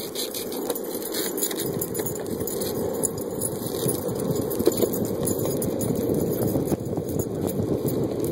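Skateboard wheels rolling over asphalt: a steady gritty rumble that grows fuller and louder about a second and a half in, with light clicks scattered over it.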